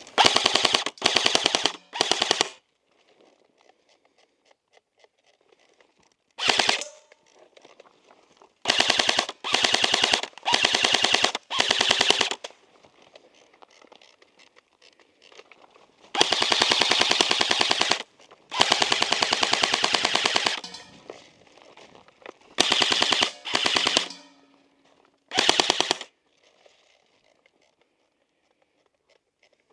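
A&K SR25 airsoft electric rifle (AEG), run on a 9.6 V battery, firing full-auto bursts: a fast, even rattle of clicks. It fires about a dozen bursts, from a fraction of a second to about two seconds long, with pauses of several seconds between some of them; the longest bursts come in the middle.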